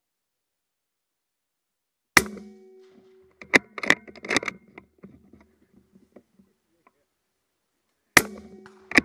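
Two suppressed rifle shots, about six seconds apart, from an Accuracy International AE MK3 in .260 Remington fitted with a YHM titanium suppressor, each sharp crack followed by a short metallic ring. A second or so after each shot come several quick metallic clicks as the bolt is cycled.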